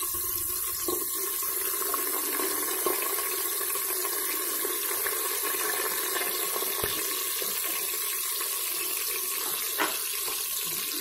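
Sliced onions sizzling steadily in hot oil in an aluminium pressure cooker, with a few light knocks.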